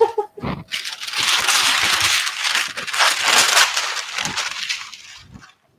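Parchment paper being pulled off its roll and crumpled over a metal cookie sheet: a dense crackling rustle that starts about a second in and fades out near the end.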